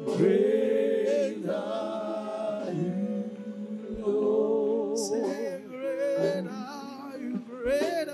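Slow gospel worship singing: voices holding long, wavering notes in short phrases over sustained background chords.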